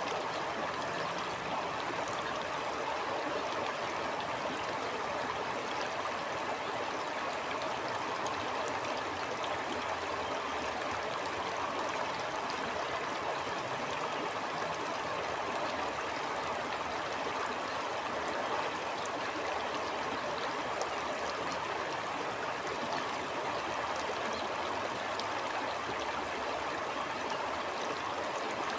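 Stream water flowing steadily: a continuous rush of running water with faint, scattered small splashes.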